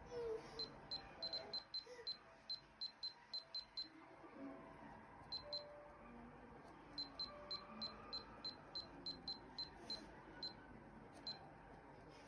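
Futaba T18MZ radio transmitter's touchscreen beeping as the model list is scrolled: short high beeps, one per touch, in quick runs of about four a second with pauses between the runs.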